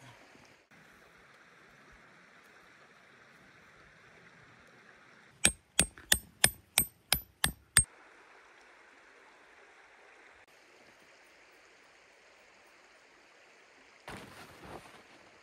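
A river running steadily. About five seconds in, eight quick, sharp metal strikes ring out, about three a second, like a hammer on metal. Near the end there is a short bout of rustling.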